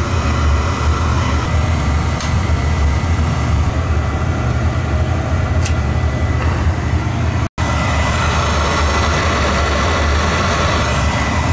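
Beckett oil burner firing: its motor, blower and flame make a steady low rumbling hum with a thin, steady high tone above it. The burner has just been serviced with a new nozzle and filter and a cleaned burner head, and it shows good oil flow and draft.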